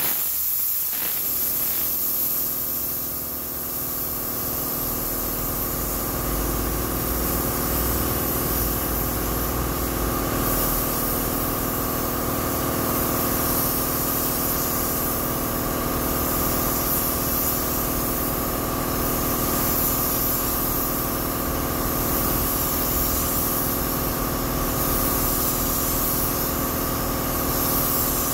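Compressed air hissing steadily from a gravity-feed paint spray gun as paint is sprayed onto a bus panel. Under it a steady machine hum, like a motor running, comes in about a second in and holds.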